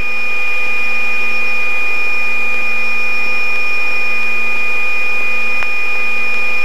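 Helicopter heard from inside the cockpit in steady flight under load: a constant drone with a high, steady whine over it and several lower steady tones, holding level throughout.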